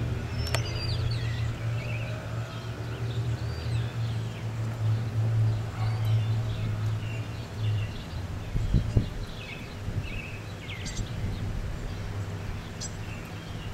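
Small birds chirping intermittently in a garden over a steady low hum. The hum stops about eight seconds in, and brief low rumbles follow.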